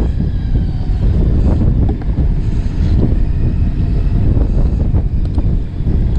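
Wind buffeting the microphone over the steady rumble of a fishing boat's engine, with a few faint knocks of a knife on a cutting board.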